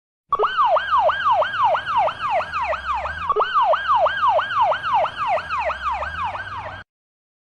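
Electronic emergency-vehicle siren in fast yelp mode: a tone that jumps up and slides down again about four times a second. The pattern restarts a little before halfway and the siren cuts off suddenly near the end.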